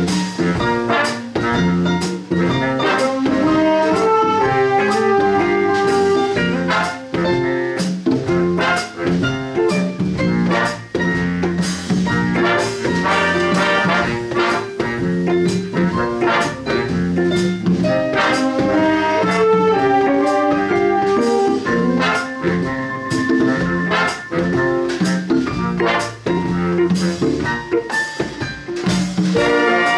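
Big band playing, with trumpets and trombones over drums keeping a steady beat.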